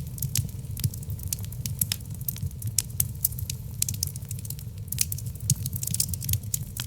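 Logs burning in a wood fireplace: frequent sharp crackles and pops, several a second, over a low steady rumble of the flames.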